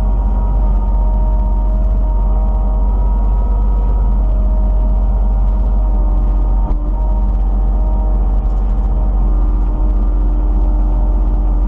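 Kubota KX91 mini excavator's diesel engine running steadily while the machine works a fence post out of the ground, with one brief knock about two-thirds of the way in.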